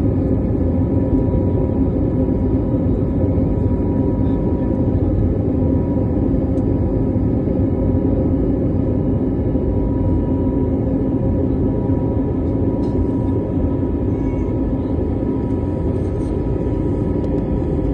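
Aeroplane engines running: a steady low rumble with a constant hum over it.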